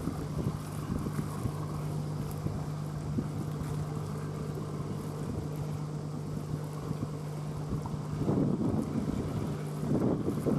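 Wind buffeting the microphone over a steady low engine hum, which stops near the end as the wind gusts harder.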